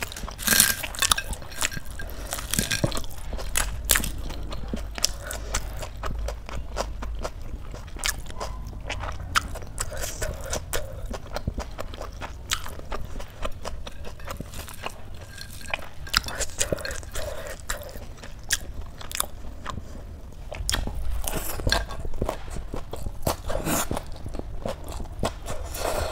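Crisp papad being crunched and chewed with rice, along with crackles of the papad being broken up by hand on the plate: many sharp, irregular crunches.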